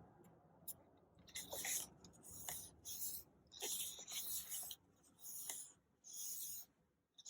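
Faint paper rustling as the pages of a paperback-like album photobook are turned and slid over, about six short swishes with small clicks and brief pauses between.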